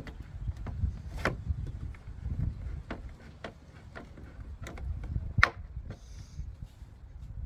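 Screwdriver fixing a number plate in a plastic camera frame to a car's tailgate: scattered light clicks and knocks of tool, screws and frame, the sharpest about five and a half seconds in, over a low steady rumble.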